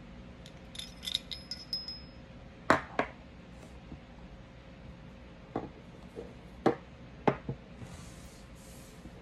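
Parts of a disassembled Smith & Wesson M&P Shield Plus 9mm pistol being handled: light ringing metallic clinks as the barrel and recoil spring come out of the slide, then sharp knocks as the metal parts are set down on a wooden desk, two close together about three seconds in and several more later.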